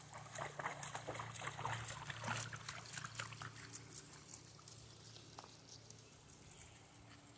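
Faint splashing and sloshing of water as a dog swims. Light, scattered splashes for the first few seconds, then dying down.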